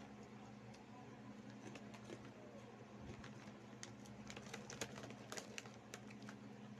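Plastic snack bag crinkling as fingers rummage inside it for corn snacks: faint, scattered crackles that come thickest around four to five seconds in, over a steady low hum.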